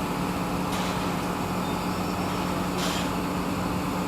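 Heavy diesel engine running steadily with a low, even drone, and two short hisses about a second and three seconds in.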